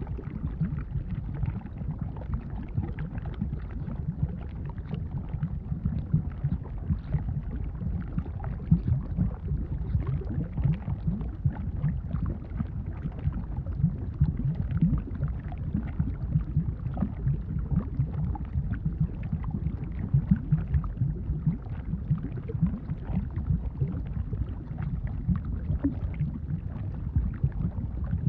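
Volcanic eruption rumbling: a deep, steady rumble with dense, irregular crackling over it.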